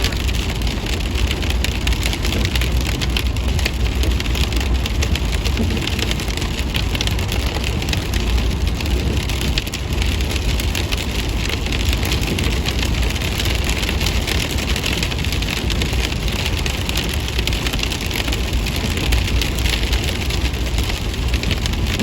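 Steady patter of rain on a moving car, over the low rumble of tyres on a wet, hail-covered road.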